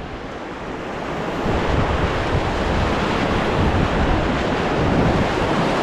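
Rushing whitewater of a river rapid around a raft, with wind buffeting the microphone. The rush grows louder over the first couple of seconds, then holds steady.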